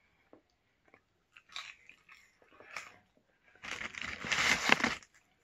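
Chewing and crunching food close to the microphone: scattered small crunches, then a louder, denser crunching about three and a half seconds in that lasts over a second.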